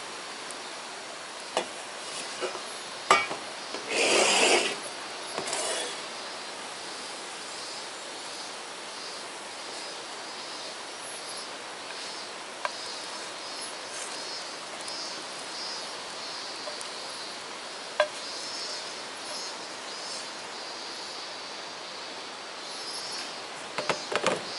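Cookware and utensils handled on a table: a frying pan, chopsticks and a stainless steel plate giving scattered clinks and knocks, with a short scraping rustle about four seconds in and a quick cluster of knocks near the end, over a steady faint hiss.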